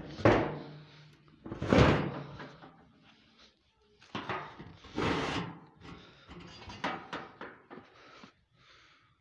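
Hinged lid of a large sheet-metal grain storage drum being shut and pressed down: a series of metal clanks and scrapes, the two loudest near the start.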